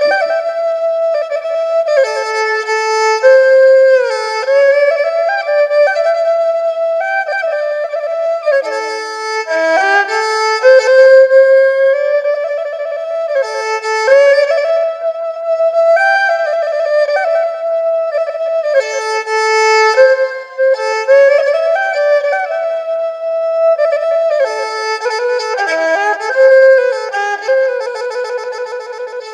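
Instrumental background music: a single high melody line that slides between notes in phrases, with no bass or drums underneath.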